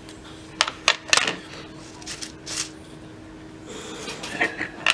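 Pliers being taken out and handled on a work surface: a handful of sharp metal clicks and clinks, a cluster about a second in and another near the end, over a faint steady hum.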